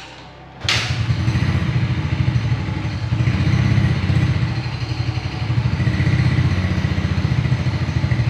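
A Yamaha automatic scooter's engine, fitted with an open air filter and long unused, catches on a kick-start about a second in and then runs with an uneven, pulsing note that swells and dips: the engine is not yet running steadily after the long lay-up.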